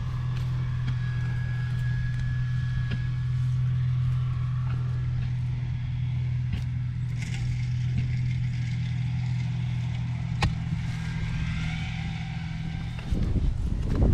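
A small engine running steadily at constant speed, a low even hum. Near the end a louder rushing noise takes over.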